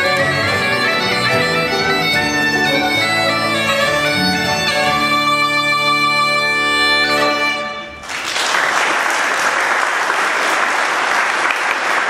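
Traditional Northumbrian folk band of Border pipes, accordion, bass guitar and plucked strings ending a tune on a held chord over the pipe drones. The music stops about two-thirds of the way in and audience applause follows.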